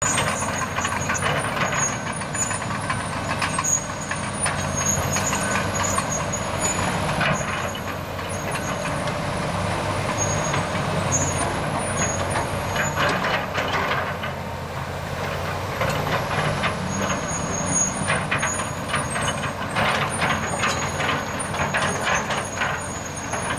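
Heavy diesel earthmoving machines, a tracked Komatsu excavator and a crawler dozer, running and working, with a steady low engine drone and scattered clanks of steel on steel. A thin high whine wavers up and down in pitch above it.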